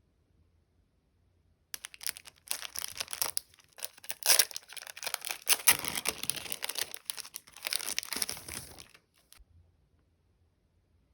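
Plastic vinyl packaging crinkling and rustling as it is handled. It starts about two seconds in and stops a couple of seconds before the end.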